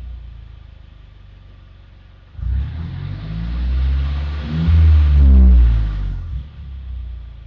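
Turbocharged four-cylinder of a 2015 Mercedes-Benz C300, fitted with MagnaFlow mufflers and an ECU tune, heard from inside the cabin. It cruises low and steady, then about two and a half seconds in pulls hard with rising pitch. A brief dip midway sounds like an upshift, then it climbs again and falls away as the throttle is released.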